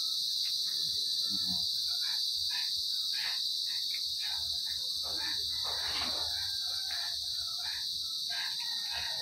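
Steady high chirring of crickets, with many short irregular smacking and clicking sounds from cats eating. About six seconds in there is one brief rising-and-falling cry.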